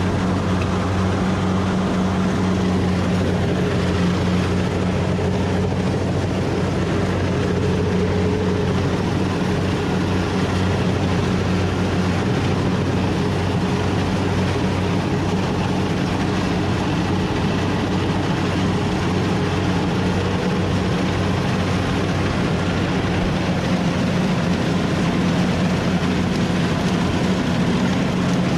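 Rice harvester machine running steadily: a constant low engine hum under an even mechanical noise, with no change in speed.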